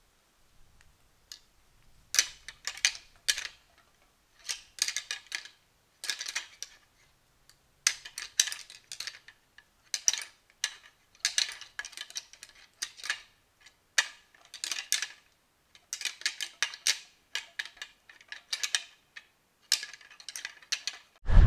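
Rattling antlers clashed and ground together in quick bouts of sharp clacking with short gaps between, imitating two whitetail bucks sparring to draw in a rutting buck.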